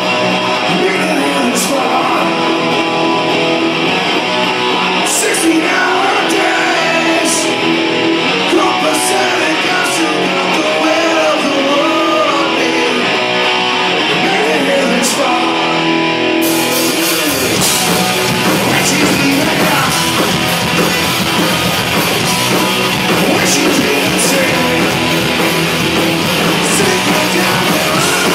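Punk rock band playing live: distorted electric guitars, bass and drums, with singing. About two-thirds of the way through, the sound fills out as the full band comes in heavier.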